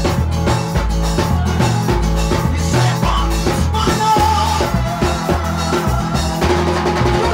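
Live band playing upbeat music: electric guitar and drums with cymbals over a strong bass line, with a steady beat.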